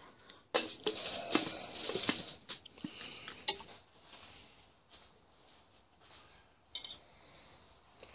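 Crinkling and rattling of a foil-covered stainless steel pot lid being handled, loudest for a couple of seconds near the start, with a single sharp clink about three and a half seconds in.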